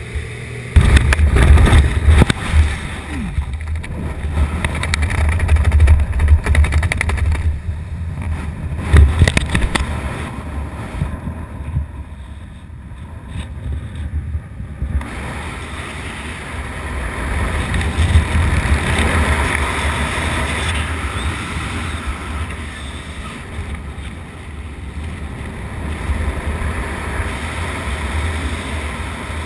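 Wind buffeting a skydiver's camera microphone: a loud, gusty rumble for roughly the first ten seconds of the jump, dropping off around twelve seconds, then a steadier rush of air under the open parachute canopy.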